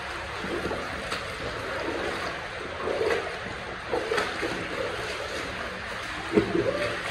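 Steady rush of flowing water, with a few short louder sounds over it, the loudest about six and a half seconds in.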